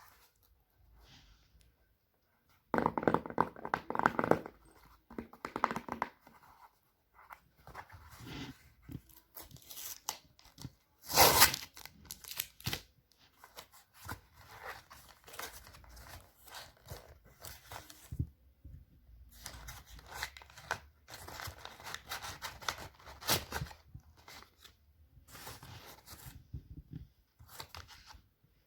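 A blind bag's packaging being torn open and crinkled by hand: a run of irregular rips and rustles, the loudest about eleven seconds in.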